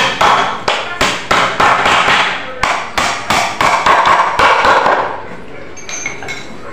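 Claw hammer driving nails into the corner joint of a wooden door jamb frame: quick, sharp strikes about three a second that stop about five seconds in. A light clink follows near the end.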